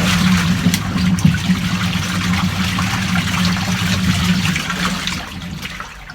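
Hisense twin-tub washing machine's wash tub running: a steady motor hum under the churning and sloshing of the wash water. Near the end the hum stops and the water noise dies away.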